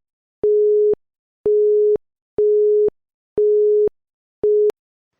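Electronic countdown-timer beeps giving time to answer a quiz question: a single steady mid-pitched tone, about half a second long, repeating once a second five times, the last one cut short.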